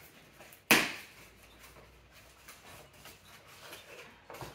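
Small cardboard boxes being handled and unpacked: a sharp knock about a second in, then light rustling and scraping of cardboard, and another smaller knock near the end.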